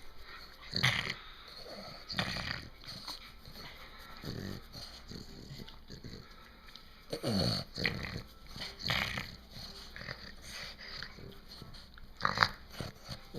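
A pet dog making short, irregular vocal noises, with a longer call falling in pitch about seven seconds in and a loud short sound near the end.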